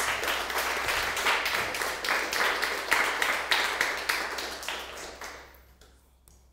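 Audience applauding, many hands clapping at once, the applause dying away about five and a half seconds in.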